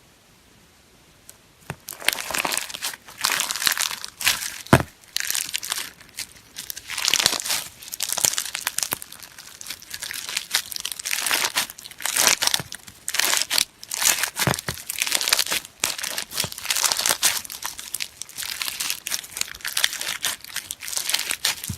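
Slime being squeezed and pressed by hand, crackling and crunching in uneven surges, starting about two seconds in.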